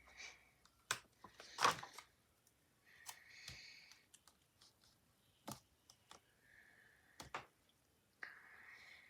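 Faint handling of a paper sticker sheet: scattered small clicks and taps with a few short, soft paper rustles.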